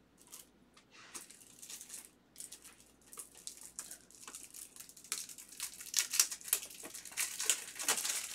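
Foil trading-card pack being crinkled and torn open by hand: a run of sharp crackles that grows louder in the second half.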